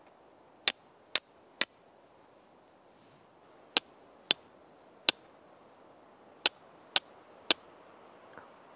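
Steel striker hitting a piece of flint to throw sparks: nine sharp metallic strikes in three quick sets of three, each with a brief ringing ting.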